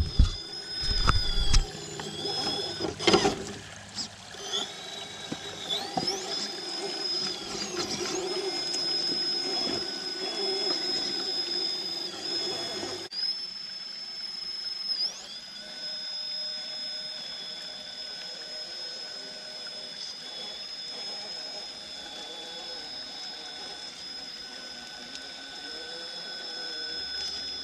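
High-pitched electric whine of an RC rock crawler's brushless motor and ESC as it creeps over rock. The steady tones bend in pitch now and then with the throttle. A couple of sharp knocks, tyres or chassis striking rock, come about three seconds in.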